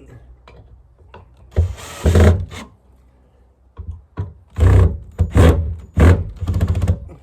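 A heavy wooden duck-coop lid being lifted and shifted: wood scraping and knocking. There is a long scrape about two seconds in, then a run of loud knocks and scrapes from about halfway on.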